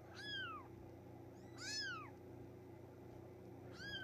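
Three-week-old Bengal kitten crying with three high mews, each rising then falling in pitch. It is distressed at being held up and stretched out, which makes it feel insecure.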